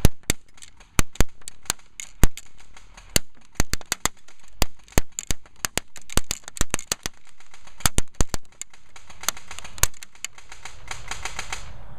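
Battery-powered airsoft Mac-11 (Well D93) firing full-auto bursts at a target: a string of sharp, uneven cracks, with a faster run of clicks near the end.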